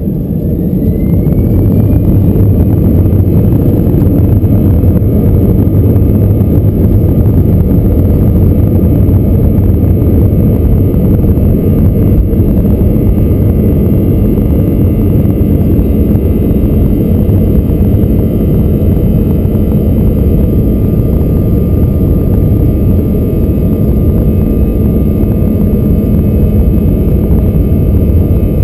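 Airbus A321-212's CFM56 turbofan engines spooling up to takeoff thrust: a rising whine and swelling roar over the first couple of seconds, then a loud steady roar as the airliner accelerates down the runway, heard from inside the cabin.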